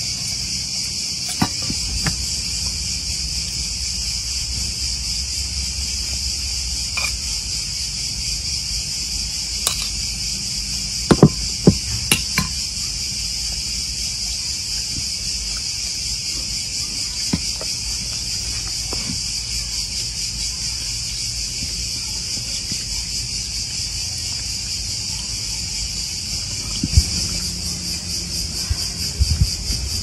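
Steady chorus of crickets chirping throughout, with a few sharp knocks and clicks: a loud cluster a little over a third of the way in and several more near the end.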